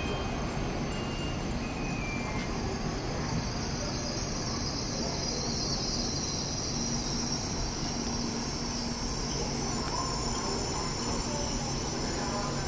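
Shinkansen bullet train rolling slowly into the platform: a steady low rumble and hum with a high hiss that grows stronger about a third of the way in.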